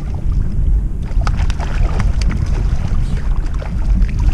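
Low wind rumble on the microphone. From about a second in come scattered small splashes and ticks as a hooked calico bass thrashes at the water's surface beside a kayak.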